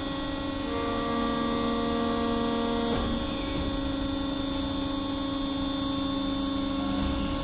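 Bio-waste conveying machinery, a walking floor feeding a screw conveyor, running with a steady mechanical hum and whine. A second set of higher tones joins about a second in and stops about three seconds in.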